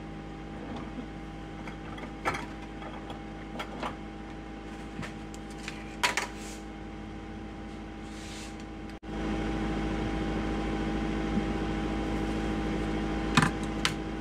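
Countertop air fryer oven running on air fry at 400 degrees: a steady fan hum with a few light clicks. About nine seconds in, the sound cuts out for an instant and comes back louder.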